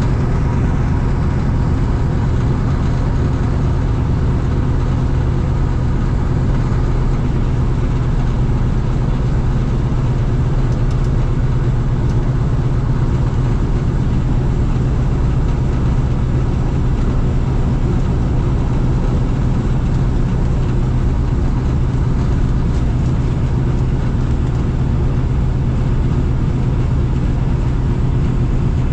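Ford Tri-Motor's radial engines running steadily while the plane taxis, a loud, even low drone heard from inside the cabin.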